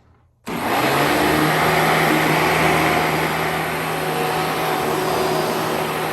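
A 1998 Hoover Elite Legacy Supreme upright vacuum cleaner is switched on about half a second in. Its motor spins up within a moment and then runs loud and steady.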